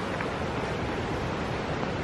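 Steady rushing noise of hurricane wind and rain, with wind buffeting the microphone.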